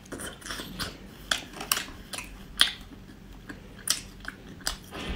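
Close-up chewing and biting of skewered octopus eggs: irregular wet mouth clicks and smacks, about two or three a second.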